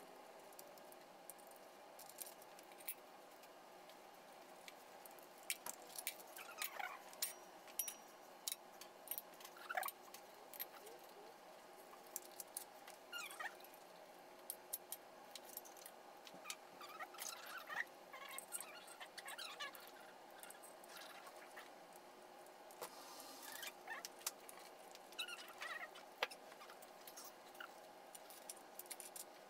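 Faint, scattered metallic clicks and clinks of small parts and a hand tool being handled at the bolt holes of a BMW 325i's bare cylinder head.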